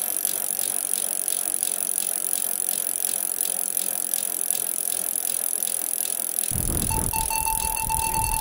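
Bicycle freewheel hub ticking evenly, about three clicks a second, over a steady high hiss. Near the end a low rumble and a held tone come in.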